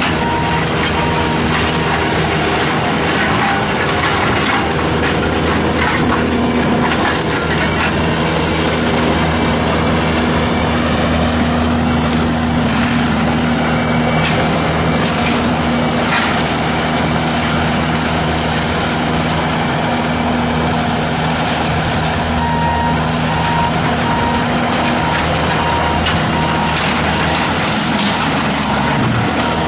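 Bobcat T770 tracked skid steer running steadily under load with its forestry mulcher head, a continuous heavy engine-and-drum drone. A backup alarm beeps briefly at the start and again for the last several seconds.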